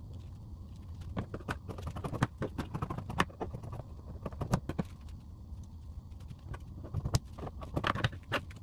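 Large fabric scissors cutting through a layer of fabric along a paper pattern: irregular snips and clicks of the blades, a few every second, over a low steady hum.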